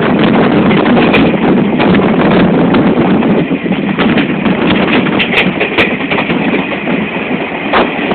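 Running noise of a passenger train heard from on board a coach: a steady rumble with wheels clattering over the rail joints, and a few sharper clicks.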